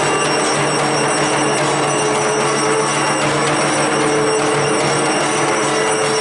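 Loud, unbroken clamour of Durga Puja rites, with bells ringing and a long held tone sounding twice over a dense noisy background.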